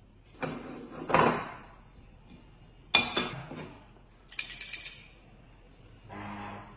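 A porcelain bowl and plate clink as they are handled, then the coin tokens inside rattle in a quick run of about five clicks as the covered plate is shaken for xóc đĩa. Near the end a steady low electric buzz starts: the mat's vibration unit signalling the throw.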